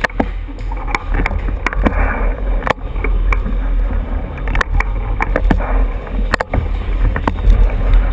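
Bicycle ridden fast over a smooth indoor floor, heard from a camera on the bike: a steady low rumble of wind buffeting the microphone and tyres rolling, with frequent sharp clicks and rattles from the bike.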